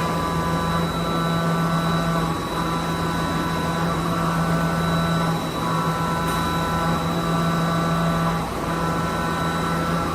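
Machining cell of a Mazak i250H mill-turn machine with a gantry robot running: a steady mechanical hum and whine whose tones break briefly about every three seconds, over a constant high-pitched tone.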